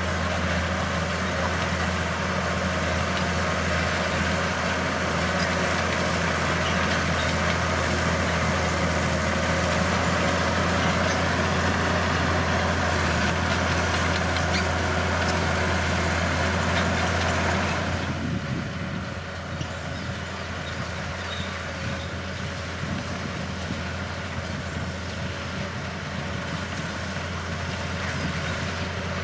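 Bulldozer's diesel engine running with a steady low hum. It drops to a quieter, lower-pitched running about two-thirds of the way through.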